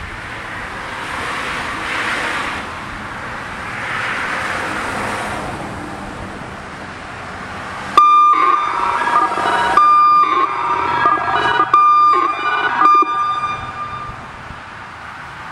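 Outdoor warning siren sounding: at first a faint sound swelling and fading every two to three seconds, then about eight seconds in a loud steady tone cuts in suddenly, breaking off and dipping briefly in pitch every second or two, and fades about six seconds later.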